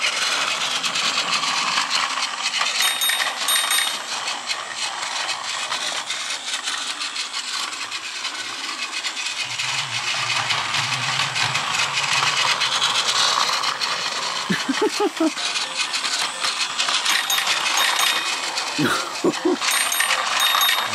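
Gold-plated 0 Series Shinkansen Plarail toy train running at low speed on plastic track: its battery motor car's gearing and wheels make a dense, steady rattle of fine clicks.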